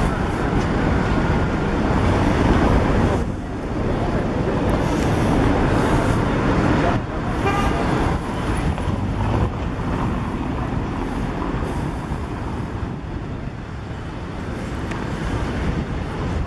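Steady city street traffic: a continuous rumble of passing cars and buses, with a brief pitched tone like a horn toot about seven seconds in.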